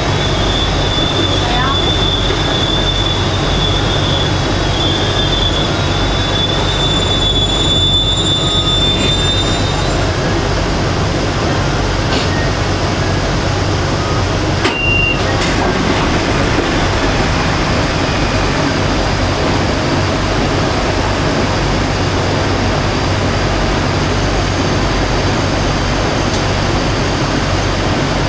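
Beijing Metro SFM04 subway train running, heard from inside the car: a steady rumble of wheels on rail, with a high-pitched wheel squeal that wavers through the first ten seconds or so and then fades out.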